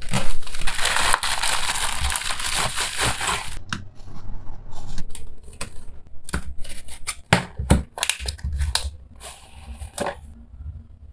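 A box cutter slits open a plastic mailer bag, which tears loudly with crinkling plastic for about the first three and a half seconds. After that come scattered short rustles and clicks as the tape on a cardboard shipping box is cut and its flaps are opened.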